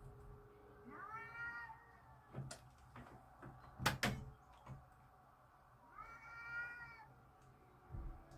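Domestic cats yowling at each other in a fight standoff: two long, drawn-out baby-like wails about five seconds apart, the warning calls of cats squaring up to fight. A sharp knock about four seconds in.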